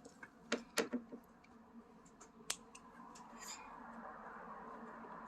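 Several light clicks and taps, the sharpest about half a second to one second in and again about two and a half seconds in, then a faint steady noise that grows a little from about three seconds in.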